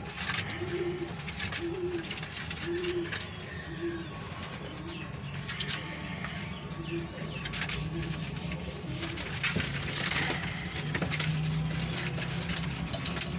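Domestic pigeons cooing: a short low coo repeated about once a second, fading over the first several seconds, then a longer coo near the end, with scattered light clicks.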